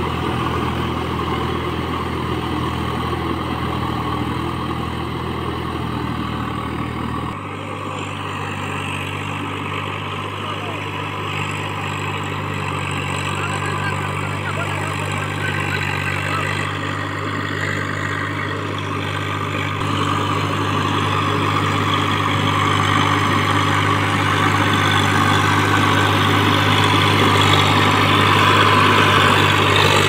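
Farm tractor's diesel engine running steadily while pulling a rotavator through a flooded paddy field. The engine note shifts abruptly about seven seconds in and grows louder toward the end.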